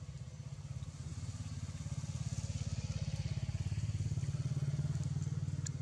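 An engine running with a steady low throb that grows louder from about two seconds in and eases off near the end.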